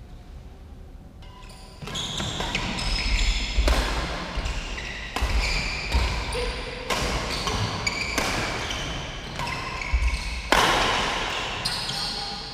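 Badminton doubles rally: rackets hitting the shuttlecock about once a second, with short high squeaks of court shoes between the hits. The rally starts about two seconds in, and the loudest hit comes near the end.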